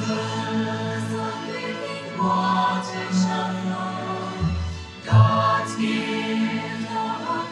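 A choir singing slow, sustained phrases over music, with new phrases beginning about two seconds in and again about five seconds in.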